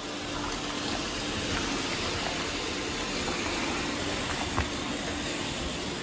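Robot vacuum cleaners running over a rice-strewn floor: a steady motor and fan whir with a faint hum, and a few faint ticks.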